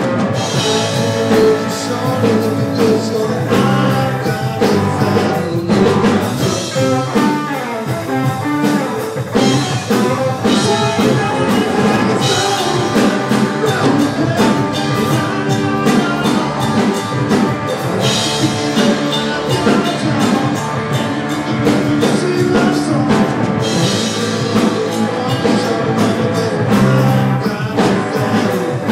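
A live band playing: electric guitar, electric bass and drum kit.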